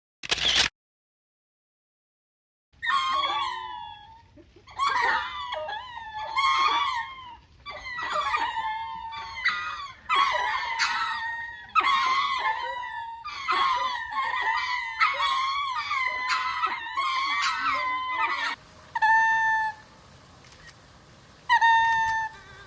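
Ring-tailed lemurs calling in chorus: many overlapping wailing calls rising and falling in pitch start about three seconds in and run for some fifteen seconds. Near the end they give way to a few separate, steadier calls spaced a couple of seconds apart.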